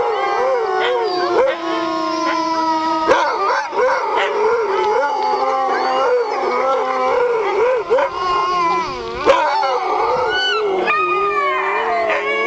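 Husky sled dogs howling together in a chorus: several long howls overlapping, some held steady and others wavering up and down, with a couple of short sharp yips in between.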